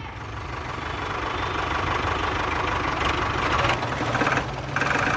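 Small engine running steadily, growing louder over the first couple of seconds, with louder stretches about three seconds in and again near the end.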